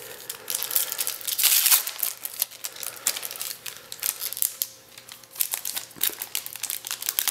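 Foil trading-card pack being crinkled and pulled open by hand. The crackling is densest and loudest about a second and a half in, then thins to scattered crinkles.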